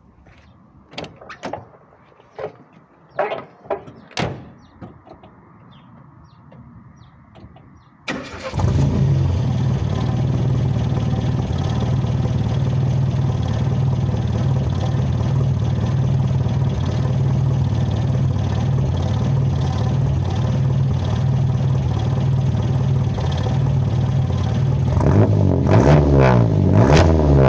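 A few scattered knocks and clicks, then about eight seconds in the Z24-swapped Datsun B210's 2.4-litre four-cylinder, with a Weber 38 carburettor and Nismo Mikuni camshaft, starts and idles steadily through a Pacesetter header, 2.25-inch exhaust with a short resonator and twin stainless blast pipes. Near the end the engine is revved in a few quick throttle blips.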